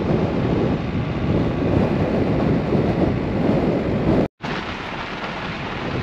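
Strong wind buffeting the microphone, a gusty rumbling noise, broken by a split-second dropout to silence about four seconds in.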